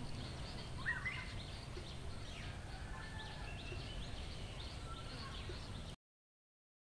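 Quiet rural outdoor ambience: a low steady rumble with faint, scattered bird chirps. It cuts off to dead silence about six seconds in.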